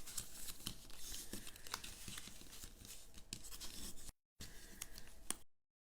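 Cardstock being handled, scored and folded by hand: scattered scrapes, crinkles and light taps of paper. The sound cuts out to dead silence briefly about four seconds in and again from about five and a half seconds.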